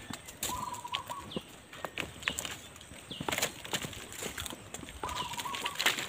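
Footsteps crunching and rustling through dry leaf litter and undergrowth, with scattered twig cracks. A bird gives a short wavering call twice, about half a second in and again about five seconds in.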